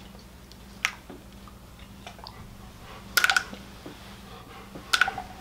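A few light clicks and taps of small hard objects being handled: one about a second in, a short rattling cluster about three seconds in, and another near the end, over a low steady hum.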